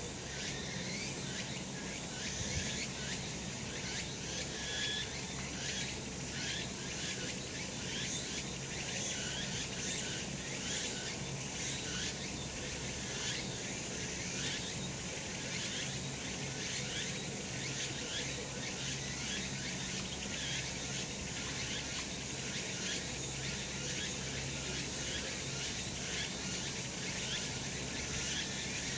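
Cicadas singing in a dense, steady chorus.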